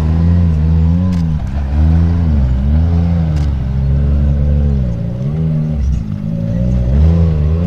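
Off-road side-by-side (UTV) engine revving hard as it claws through loose dirt mounds. The engine pitch rises and falls again and again, easing off briefly a few times before it picks up again.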